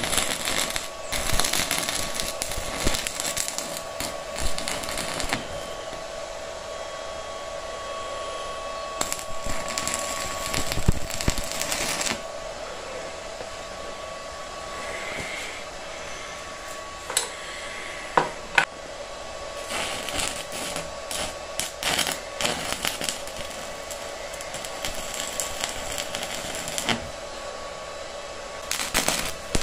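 Stick welding arc crackling as a steel tie rod end is welded onto a rod. A long continuous run of arc for about the first twelve seconds, then a quieter pause, then shorter runs of arc with breaks between them.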